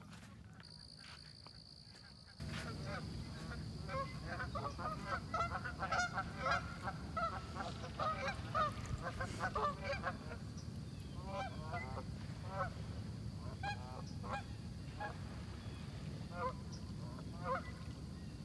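A flock of geese honking, many overlapping calls, thickest about four to ten seconds in and thinning out after, over a steady low background rush that starts about two seconds in.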